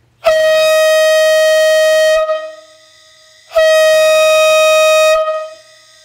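Homemade PVC air-driven train horn with a diaphragm power chamber, sounding two loud blasts of about two seconds each on one steady high note of about 622 Hz (D-sharp), tuned to match the high note of a K5LA horn.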